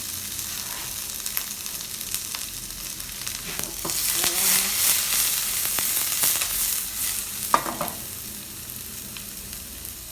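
Chopped onions and peppers sizzling in hot vegetable oil in a frying pan while being stirred, with utensil clicks against the pan. The sizzle swells about four seconds in and eases after about seven seconds, with one sharp clack just before it eases.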